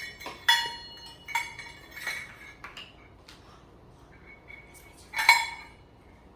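Measuring cups and spoons clinking and knocking together as they are picked up and handled, several ringing clinks with the loudest near the end.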